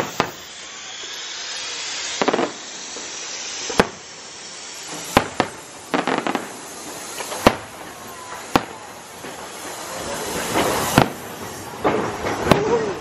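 Aerial firework shells bursting overhead: a series of sharp bangs a second or two apart, with crackling near the end.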